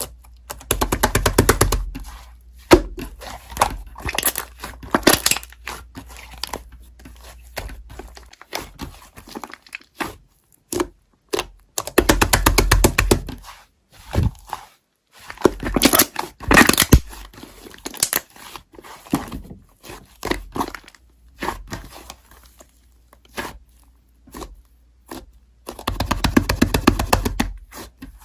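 Slime being squeezed, poked and stretched by hand, giving repeated bursts of rapid crackling and popping, a second or two each, with single sharp pops and snaps between them.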